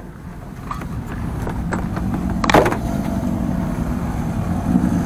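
A door handle and latch click, then a sharp knock about halfway through, over a low vehicle rumble that grows steadily louder. An engine hum comes in near the end.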